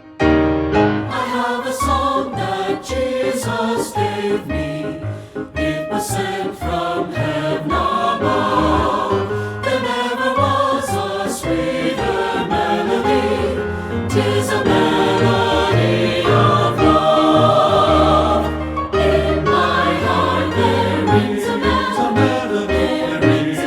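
Christian worship song: a choir singing over instrumental accompaniment with a steady drum beat.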